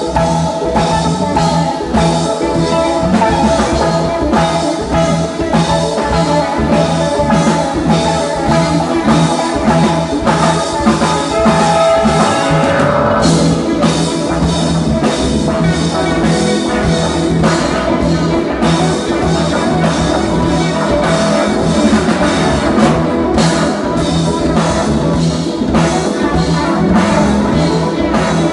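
Live rock band playing with drum kit, bass, two electric guitars and keyboard, a steady drum beat under sustained guitar and keyboard notes.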